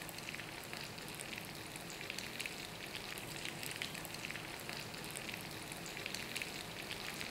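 Paneer-stuffed bread rolls deep-frying in hot oil: a steady sizzle full of small crackles and pops.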